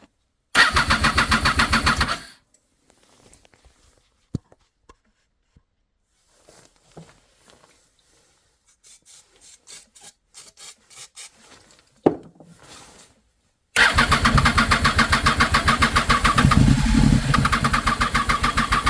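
2007 Triumph Daytona 675's three-cylinder engine being cranked on the electric starter with brake cleaner in the cylinders: a short cranking burst, then after a pause with faint clicks a longer steady cranking run, with a brief surge partway through as it tries to fire. It wants to start on brake cleaner but won't run, a sign that no fuel is reaching it, from clogged injectors or a fuel pump not making enough pressure.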